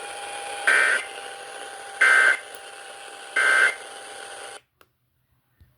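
Emergency Alert System end-of-message code received off an FM station: three short bursts of warbling data tones, about 1.3 seconds apart, the sign that the alert is over. They sit over steady radio hiss, which cuts off suddenly about four and a half seconds in.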